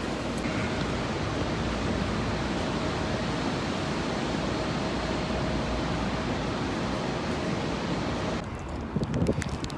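Steady rushing noise with a faint steady hum running through it; about eight seconds in it cuts off suddenly to a quieter background with light clicks and soft thumps.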